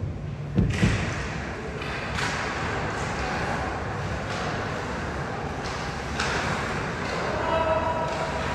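Ice hockey rink during play: two or three heavy thuds within the first second, then steady rink noise with scattered sharp knocks.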